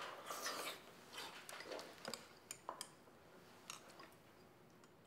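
Faint clinks of utensils against dishes at a meal table, a few scattered ticks that die away about four seconds in.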